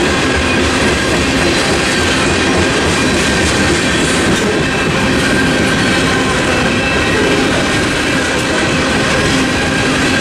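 Freight train's boxcars and covered hoppers rolling through a level crossing at close range: a loud, steady rolling noise of steel wheels on rail, with a steady pitched tone held over it.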